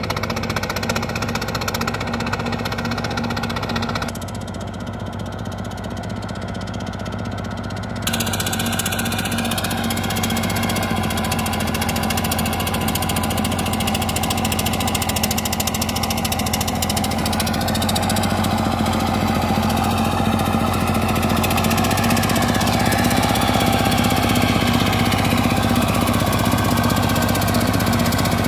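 Single-cylinder diesel engine of a two-wheel tractor running steadily under load while working a flooded rice paddy, with a knocking diesel clatter. It drops in level for a few seconds about four seconds in, then grows louder, its pitch rising briefly past the middle.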